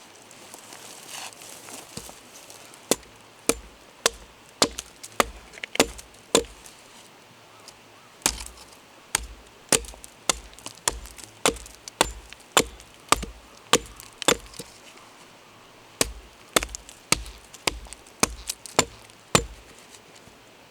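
Firewood being chopped: sharp wooden strikes about two a second, in three runs with short pauses between them.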